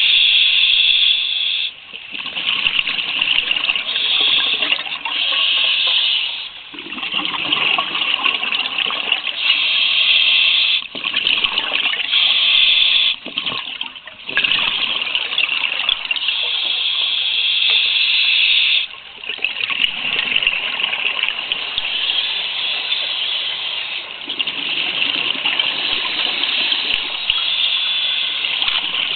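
Scuba diver's breathing underwater through a regulator: bubbling, hissing noise in long spells of a few seconds, broken by short pauses between breaths.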